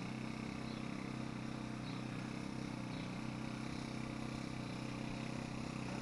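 A steady low hum with faint high ticks about once a second.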